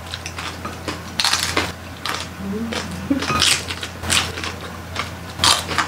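Close-up chewing and crunching of crispy roast pig (lechon) skin and meat: several sharp crunches, about one every one to two seconds.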